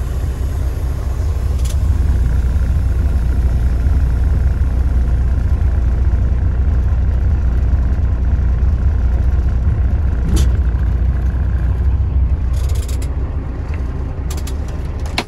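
Semi-truck's diesel engine running steadily, a deep low rumble heard from inside the cab. A few short clicks and brief hisses come in the second half.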